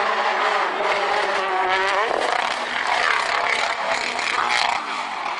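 Rally car engine at high revs, its pitch rising for about two seconds, then a rough, noisy rush with scattered clattering as the car goes off the road in a cloud of dust.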